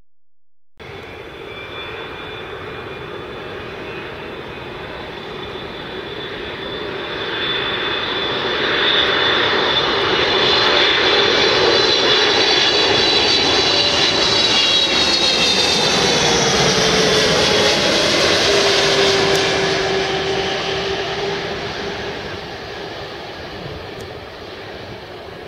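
Boeing 777 twin-engine jetliner on final approach passing close by: jet roar starting abruptly about a second in and building, with high whining engine tones that slide down in pitch as it passes, then fading as it flares to land.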